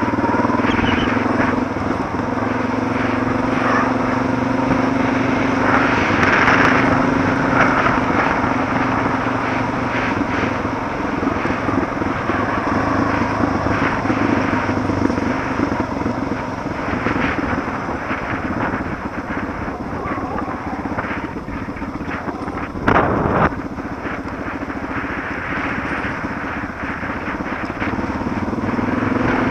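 Suzuki DR650's single-cylinder four-stroke engine running at a steady, moderate pace while the motorcycle rides a gravel road, with wind and road noise underneath. A brief louder noise about 23 seconds in.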